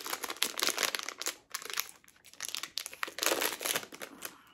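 Crinkling of a Tokidoki blind bag being handled and torn open by hand, in irregular bursts with brief lulls about one and a half and two seconds in.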